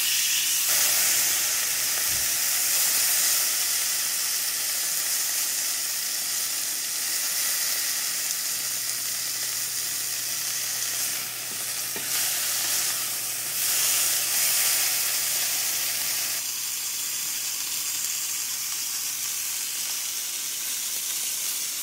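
Hanger steak sizzling steadily as it sears in a hot cast-iron skillet with garlic cloves.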